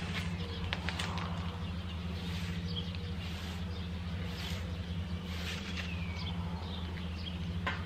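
A steady low motor hum, with short high chirps of birds scattered over it.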